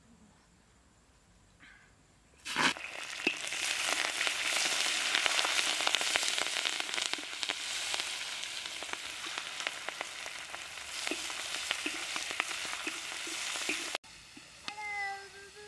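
Food going into a smoking-hot wok over a wood fire: a sudden loud sizzle about two and a half seconds in, then steady frying with many crackles and pops, cutting off abruptly near the end.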